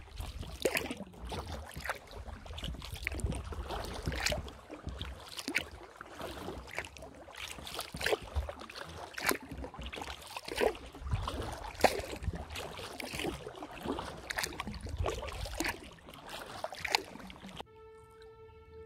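Kayak paddling on calm water: the paddle blade dipping and splashing about once or twice a second, with drips, over a low rumble. Near the end it cuts suddenly to violin music.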